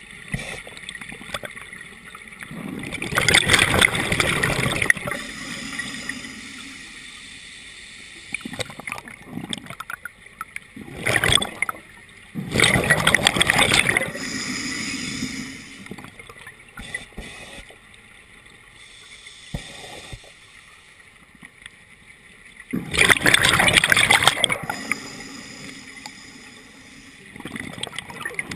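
Scuba regulator breathing underwater: exhaled bubbles gurgle out in three loud bursts about ten seconds apart, with quieter hissing between breaths.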